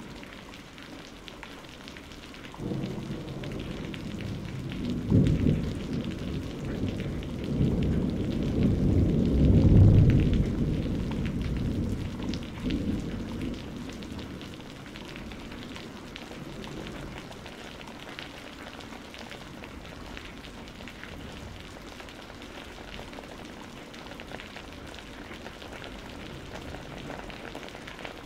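Steady hiss of an airbrush spraying paint onto a masked plastic model, with a louder stretch of low rustling and handling noise from about 3 to 14 seconds in, loudest near 5 and 10 seconds.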